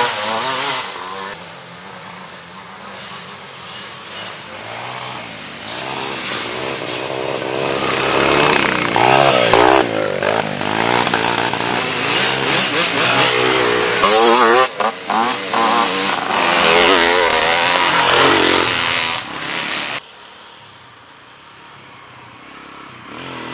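Dirt bike engines revving as racers ride along a wooded trail, their pitch rising and falling with the throttle and loudest through the middle as two bikes come by. About twenty seconds in the sound drops away abruptly, and another dirt bike is heard approaching near the end.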